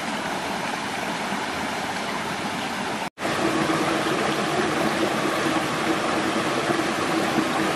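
Shallow rocky forest stream running: a steady rush of flowing water, cut off for an instant about three seconds in and a little louder after it.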